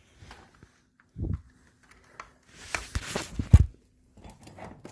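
Someone handling equipment while checking its power connection: scattered knocks and rustling, with the loudest sharp thump about three and a half seconds in.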